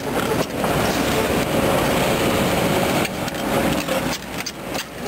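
Crawler excavator travelling, with the noise of its steel tracks running over sand and gravel and the diesel engine beneath. It dips briefly about three seconds in and eases near the end.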